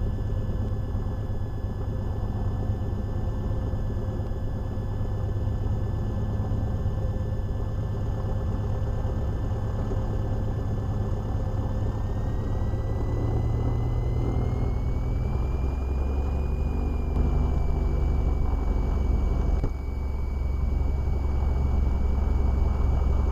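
Cessna Skylane's single piston engine and propeller running steadily on the ground. A little past halfway through, the engine note shifts: the deep hum drops lower while a thin high tone rises slightly.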